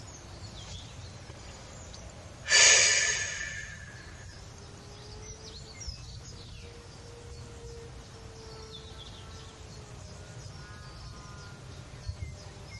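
Outdoor ambience: a steady background hiss with faint bird chirps, and a brief louder rush of noise about two and a half seconds in that fades over about a second.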